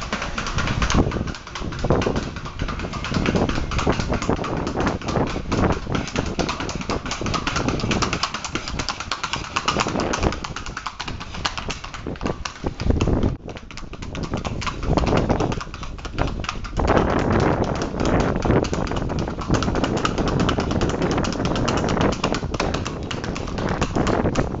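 A horse's hooves clattering on concrete in a rapid, even rhythm of quick short steps, pausing briefly twice.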